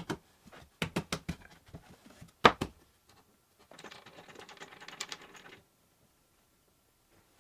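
Wooden frame parts being handled: a run of sharp knocks and clicks, the loudest about two and a half seconds in. This is followed about four seconds in by nearly two seconds of rapid fine clicking, like typing.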